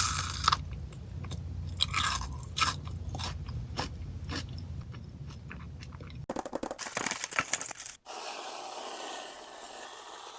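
Close-miked crunching and chewing of Ferrero Rocher chocolates, their wafer shells and hazelnuts cracking between the teeth. There are sharp crunches in the first few seconds. The sound changes abruptly about six seconds in to rapid crackling, and again at eight seconds to a steady rustling hiss.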